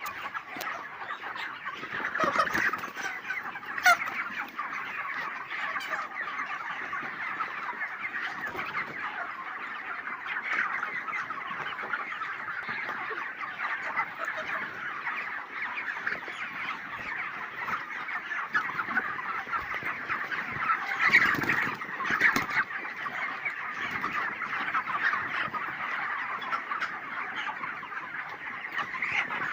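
A flock of 32-day-old broiler chickens calling together in a dense, continuous chorus of many overlapping voices. A few louder calls stand out about two to four seconds in and again around twenty-one seconds in.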